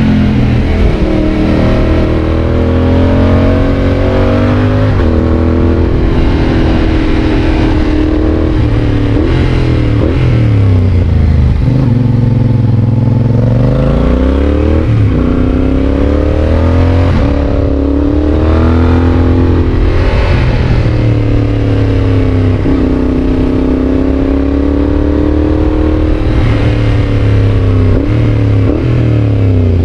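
Yamaha Tracer 7's 689 cc parallel-twin engine running through a GPR aftermarket exhaust while riding. It accelerates through the gears: the revs climb and drop sharply at each quick gear change, several times over, with slower falls where the bike eases off.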